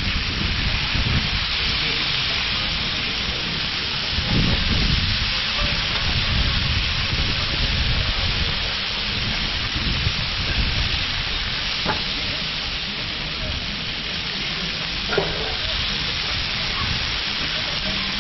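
Chicken breasts sizzling steadily on a large, hot flat-top griddle, a dense, even hiss of frying, with one brief sharp tap late on.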